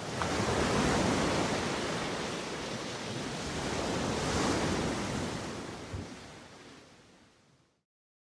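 Sea surf rushing, swelling twice, then fading out to silence near the end.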